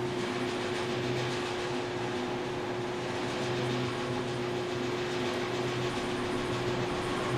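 Steady mechanical hum and running noise inside a moving aerial tramway cabin, with a constant mid-pitched tone over a lower hum.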